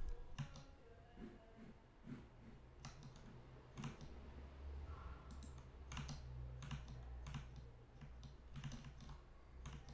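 Faint, irregular clicks from a computer keyboard and mouse, roughly one a second, over a low steady hum.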